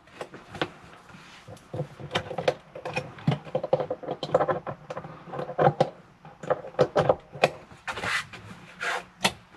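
Handling and rummaging noises: irregular knocks, clicks and rubbing against wooden cabinetry as a power cord and plug are handled and a hand reaches into a compartment.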